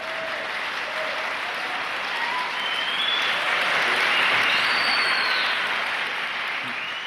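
Audience applauding at the end of a song, swelling to its loudest about four seconds in and then easing off slightly.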